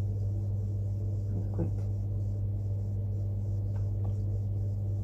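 A steady low hum, one deep tone with its overtones, running unchanged throughout.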